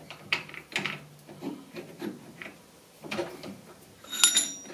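Metal round stock being handled and seated against parallels in a six-jaw lathe chuck: a few light knocks and scrapes, then a sharp metallic clink that rings briefly about four seconds in.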